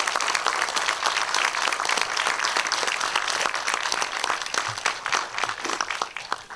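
Audience applauding a stand-up act's trick reveal. The dense clapping thins out and dies away near the end.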